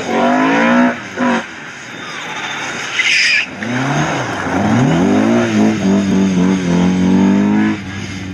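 Rally car engine revving hard as it comes through a bend and accelerates away, the revs rising and falling with brief lifts at gear changes about a second in. A short hissing burst comes about three seconds in, then the engine climbs through the revs again and drops away near the end.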